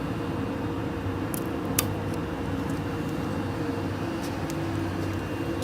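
Industrial box tape-applying machine running, a steady motor hum, with a sharp click a little under two seconds in.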